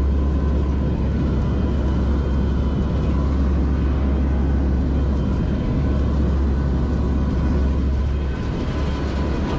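Turboprop engines and propellers of a NOAA P-3 Orion hurricane hunter droning steadily, heard inside the cabin: a loud deep hum with a steady whine above it.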